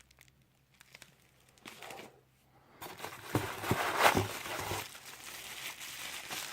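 Plastic packaging crinkling and rustling as parts are unpacked, starting about three seconds in, with a few sharp knocks from handling.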